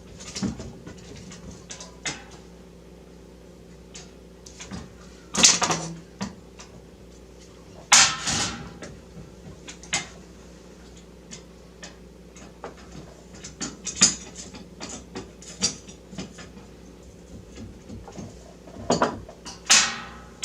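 Hands working the parts of a mining rig frame: irregular clicks and knocks, with louder short scraping clatters about five seconds in, about eight seconds in and near the end, over a steady low hum.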